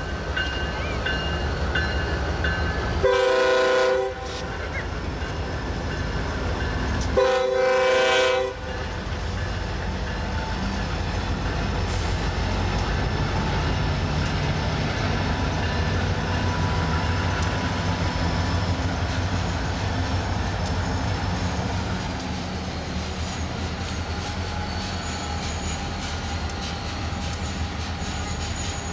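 Norfolk Southern freight train's diesel locomotives passing with a steady engine rumble; the air horn sounds two blasts of about a second each, about three and seven seconds in. Once the locomotives are by, loaded covered hopper cars roll past with a lower steady rumble of wheels on the rails.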